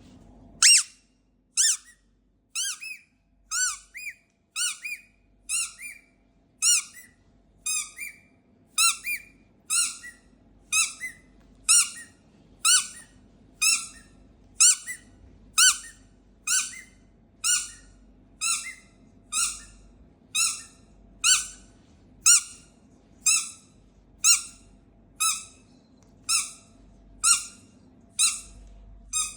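Rubber squeaky dog toy squeezed over and over, sounding a short, high squeak about once a second.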